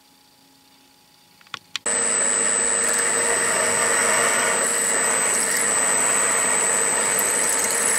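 Drill press running and drilling into cast aluminium: a steady high whine over cutting noise that starts suddenly about two seconds in, just after two clicks.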